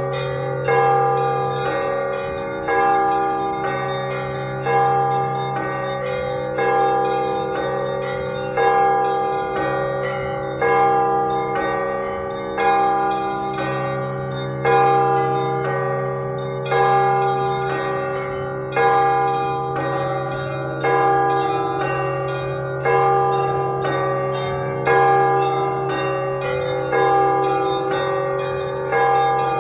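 Russian Orthodox church bells rung in a steady repeating pattern: a louder stroke about every two seconds over rapid strikes of smaller bells, all ringing on into one another.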